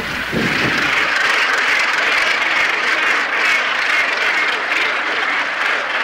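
Northern gannet breeding colony: thousands of birds calling at once in a dense, steady din.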